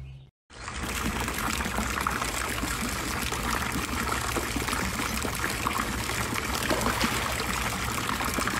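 Water running and trickling steadily at a swimming pool, starting about half a second in.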